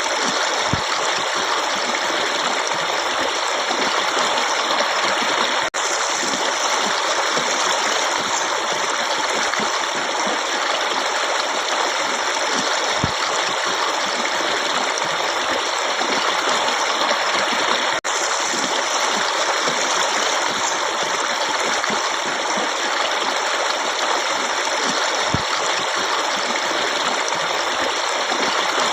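Forest stream running steadily, a dense, even sound of flowing water. The sound breaks off for an instant twice.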